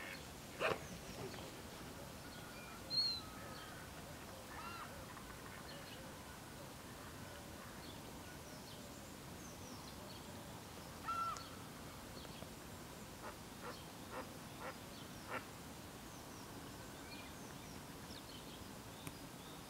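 Waterfowl on open water calling now and then over a steady faint background hiss. There are single loud calls near the start, about three seconds in and about eleven seconds in, then a run of short calls a little later.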